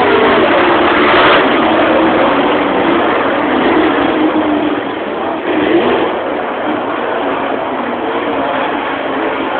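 Several dirt-track race cars' engines running and revving as they circle the track, a loud continuous din whose pitch wavers up and down.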